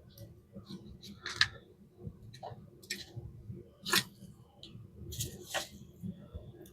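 Small metal and plastic parts of a Vibroplex telegraph key being handled and fitted during reassembly: a few separate light clicks and short scrapes, the sharpest about four seconds in.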